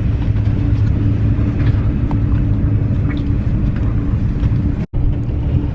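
Steady low rumble and hum of a Eurostar train running, heard from inside the carriage. The sound drops out for a split second near the end.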